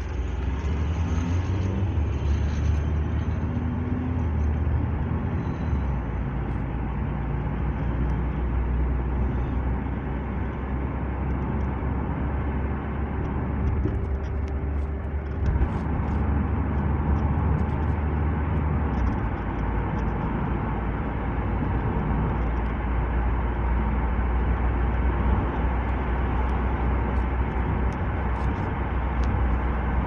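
Car driving along a paved road, heard from inside the cabin: a steady low rumble of engine and tyre noise with road hiss.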